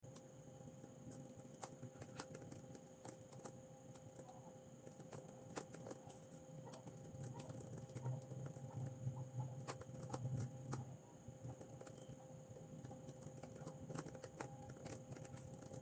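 Faint, irregular clicks of typing on a keyboard, coming a few a second in uneven runs, over a steady low electrical hum.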